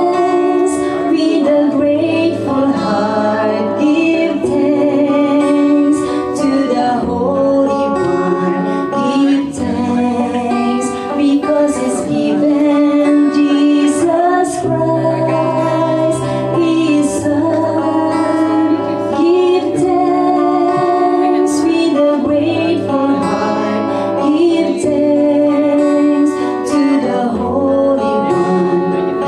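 A woman singing a worship song to strummed guitar accompaniment.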